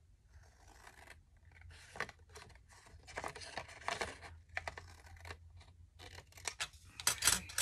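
Scissors cutting paper: an uneven series of snips with the rustle of the sheet being handled, the strokes bunched together in stretches.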